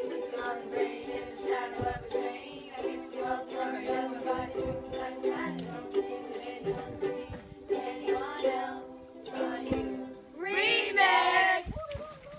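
A group of ukuleles strummed together in chords, with voices singing along. Near the end a loud, high-pitched shout cuts in over the last chord.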